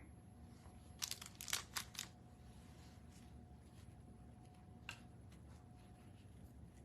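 Brief rustling of craft materials being handled: about a second of quick rustles about a second in, then a single click a few seconds later, over faint room tone.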